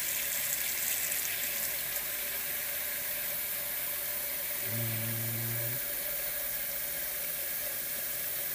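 Kitchen faucet running a steady stream of water into a stainless steel pot of eggs, filling the pot.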